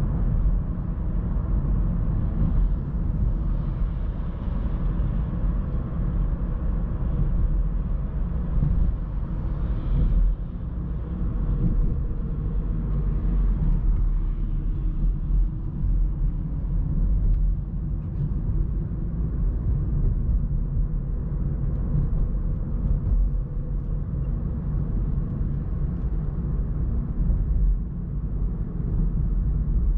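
In-cabin sound of a 2017 Opel Astra K driving at speed: steady tyre and road rumble with the 1.4-litre turbo petrol four-cylinder engine running underneath.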